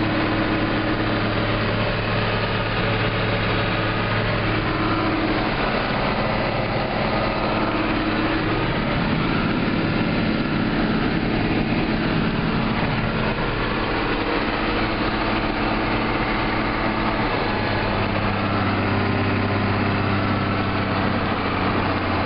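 Farm tractor's diesel engine running steadily under load, heard from inside the cab as a constant drone whose pitch wavers slightly.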